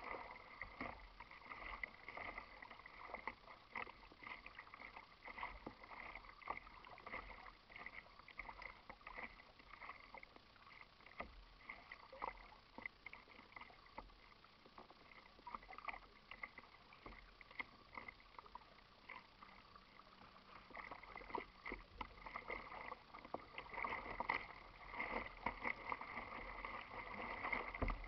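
Small waves lapping and splashing against a plastic kayak hull: a faint run of many little splashes, growing somewhat louder over the last several seconds.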